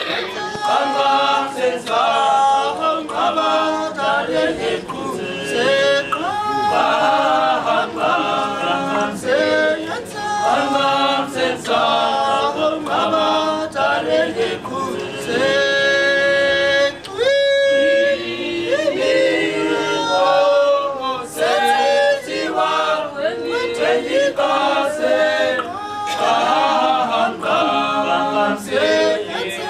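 Group of Nama men singing unaccompanied in harmony, the voices moving together through held chords. About halfway through they hold one long chord, break off briefly, and carry on singing.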